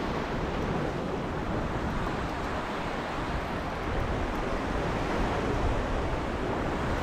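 Sea waves washing over shoreline rocks: a steady surf noise with no distinct breaks or splashes.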